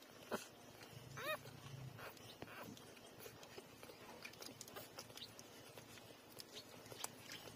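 Newborn puppies nursing: one short, high squeak rising and falling about a second in, with faint small clicks scattered through.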